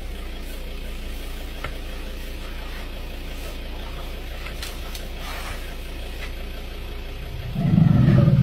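Vehicle engine idling with a steady low hum. About seven and a half seconds in, a loud low-pitched sound lasts about a second and a half.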